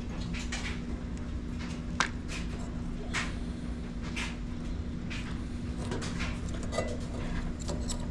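Scattered small clicks and knocks of hands working wire connectors and a plastic wire tie in a dryer's cramped wiring, over a steady low hum.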